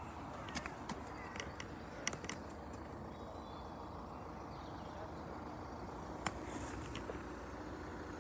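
Outdoor background noise with a steady low rumble and scattered light clicks and taps. A faint steady hum comes in about five seconds in.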